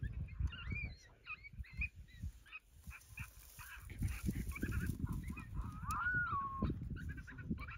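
Coyote vocalizations: a run of short high yips, then one long howl about six seconds in that rises and then falls, with more yips near the end. Wind rumbles on the microphone through the second half.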